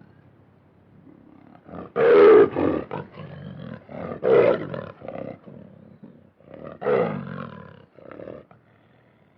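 Lion roaring: three loud roars about two and a half seconds apart, each followed by shorter, quieter calls, trailing off near the end.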